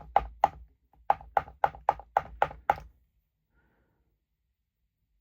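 A quick, even run of sharp knocks, about four a second, with a short break about a second in.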